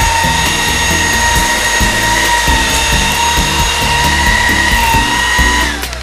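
Xiaomi Dreame V11 cordless stick vacuum running on its lowest suction setting: a steady high motor whine over rushing air as it picks up dry food crumbs. Near the end the whine drops in pitch and stops as the vacuum is switched off.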